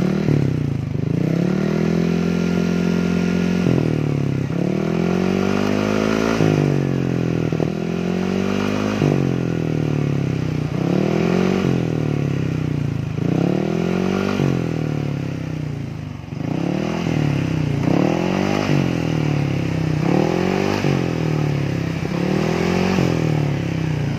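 Yamaha NMAX 155 scooter's single-cylinder engine revved in a string of quick throttle blips, the pitch rising and dropping each time, one rev held for a couple of seconds near the start. It runs through the stock muffler with its insides opened out ('bobok') and then quietened again, giving a soft exhaust note that is not blaring.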